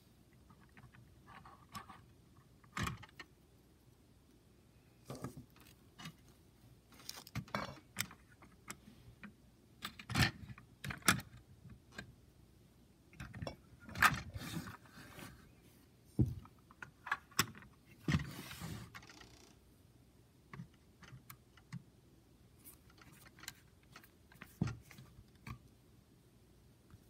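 LEGO plastic bricks and plates being handled: scattered clicks, taps and short scrapes as a hand moves pieces on the model ship and lifts a hinged deck panel, with a longer rustle shortly after the middle.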